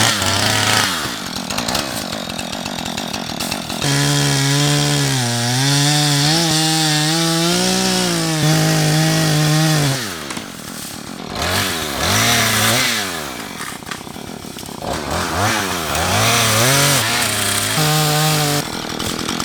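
Two-stroke chainsaw running with no one speaking over it, revved up and down several times. It holds a long high-speed stretch in the middle, with its pitch wavering, then gives shorter rising and falling revs. The saw is running again after its flooded engine was cleared by cranking with the trigger held and the choke off.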